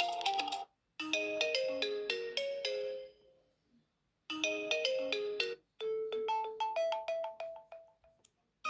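Built-in ringtones of an Alcatel PIXI 4 (5-inch) smartphone, played one after another: short melodies of quick, separate pitched notes, each stopping after a few seconds with a brief silence before the next begins.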